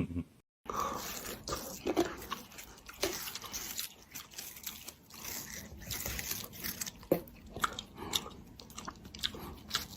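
Close-up crunchy chewing and biting, with many irregular sharp crunches.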